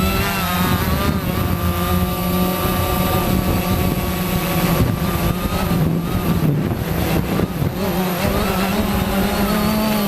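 Quanum Nova quadcopter's brushless motors and propellers whirring in flight, a steady multi-tone whine whose pitch shifts with throttle, unsettled for a few seconds around the middle.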